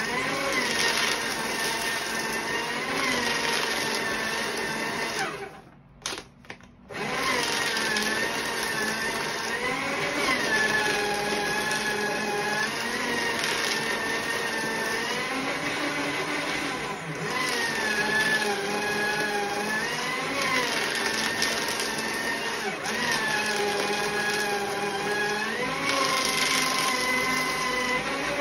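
Electric paper shredder running as photo prints are fed through it one after another. Its motor whine rises and falls in pitch several times. It cuts out for about a second and a half around six seconds in, then runs again.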